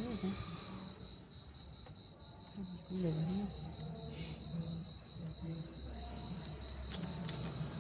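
Insect chirping: a steady, high, evenly pulsed trill that goes on without a break, typical of a cricket.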